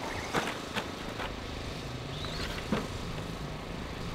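Radio-controlled cars running on an off-road track: a faint steady motor whir with a brief rising whine a little past halfway, and a few light clicks.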